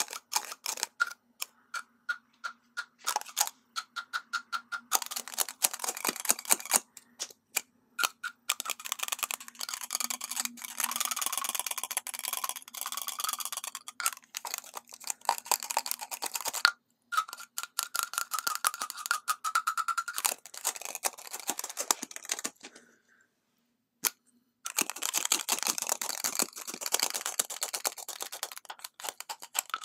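Long fingernails tapping and clicking on lipstick tubes, many sharp clicks in quick succession, with stretches of crinkly scratching as a paper label on a tube is picked at and peeled.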